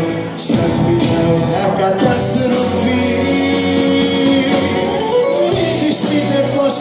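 Live band music with a male singer: held melodic notes over a steady beat.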